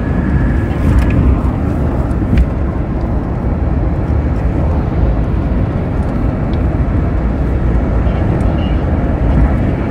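Steady road and engine noise of a moving vehicle heard from inside the cabin: a dense low rumble, with a couple of faint clicks in the first few seconds.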